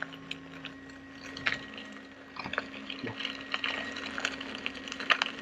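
Electric unicycle riding at a steady speed: an even motor hum with tyre noise and scattered small ticks and clicks from the trail surface.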